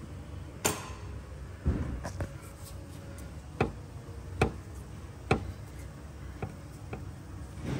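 About half a dozen sharp knocks and clicks spaced over several seconds, from tools and parts being handled while a radiator hose is pulled off.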